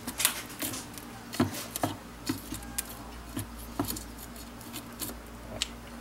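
Scattered light clicks and taps, about ten of them, from gloved hands handling things on a workbench, over a low steady hum.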